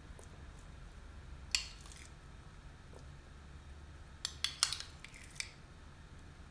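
A utensil clinking and scraping against a baking dish while toppings are spread over rice: one clink about a second and a half in, then a quick run of four or five clinks around four to five seconds in, over a low steady hum.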